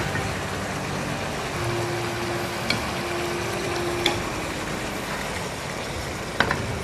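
Pan of baghare baingan, stuffed aubergines in tamarind gravy, frying with a steady sizzle on a gas burner turned up high, with three short clinks of a spoon against the pan.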